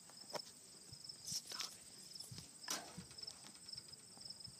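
Insects chirping in a steady, evenly pulsing high rhythm in a grass field, with a few short rustling noise bursts, the loudest about a second and a half and two and a half seconds in.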